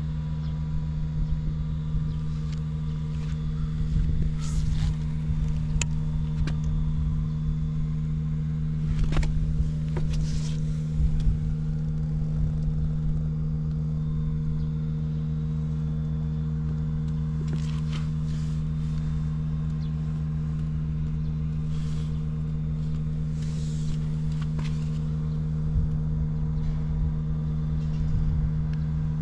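Honda Ape 50's air-cooled single-cylinder four-stroke engine, bored up with a Takegawa kit, idling steadily through a short exhaust pipe, with a few brief sharp ticks. The engine runs without any abnormal noise.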